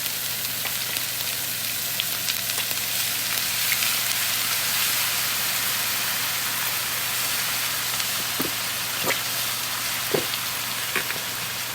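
Pork and cabbage stir-fry sizzling steadily in a hot pan, with a few short, light knocks in the last few seconds.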